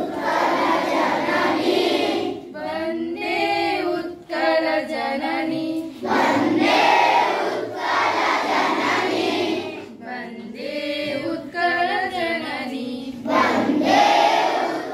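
A group of schoolchildren singing a song together, switching between a few voices singing a line and the whole group singing.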